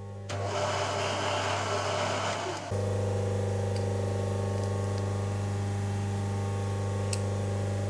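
Vertical milling machine running with a steady hum. For the first couple of seconds a rough hissing noise plays over it, then stops, and the hum steps up louder and holds steady.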